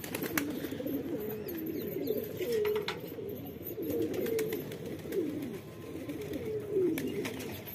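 Domestic pigeons cooing, several birds at once, their calls overlapping and rising and falling in pitch.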